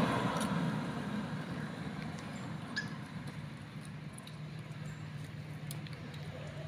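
Road traffic: a vehicle going by fades away, then a low steady engine hum comes in about four seconds in. A few faint clicks and short high squeaks sound over it.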